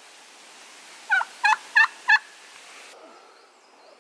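Turkey calling: four short, loud notes in quick succession, about three a second.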